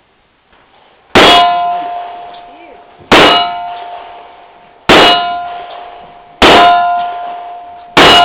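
Five gunshots, each immediately followed by a steel target ringing from the hit. The shots come about one and a half to two seconds apart.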